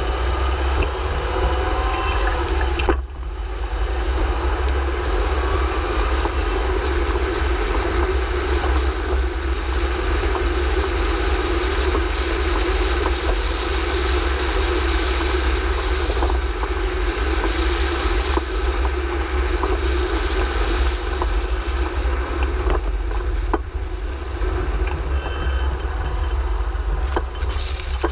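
Steady road and wind rumble at the front nearside wheel of a Subaru Forester XT rolling slowly, with a few short knocks scattered through. The knocks are the kind of low-speed front suspension clunk the owner is trying to trace.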